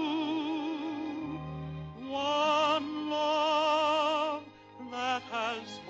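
A male tenor voice sings in an operatic style with wide vibrato. It holds a long note, then after a short break sings two more long held notes and a few quicker ones, over soft instrumental accompaniment.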